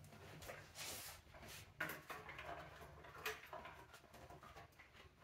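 Faint handling noises of a motorcycle fuel tank and its wiring being worked into place: rustling and scraping with a few light knocks, the sharpest about two seconds in, over a low steady hum.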